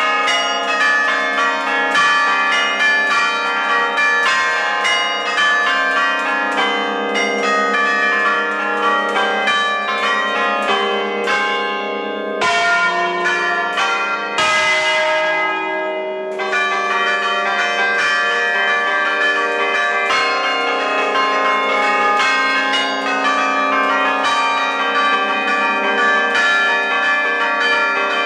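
A ring of new Ecat-cast church bells in E-flat major swinging on their wheels and striking in rapid overlapping succession, rung alla romana, heard close up in the bell chamber. The strikes thin out briefly about twelve seconds in, leaving a long ring, then the dense pealing resumes.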